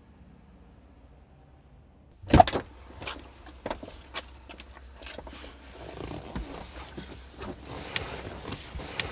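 A quiet low rumble, then a sharp knock about two seconds in, followed by a run of irregular clicks, knocks and rattles.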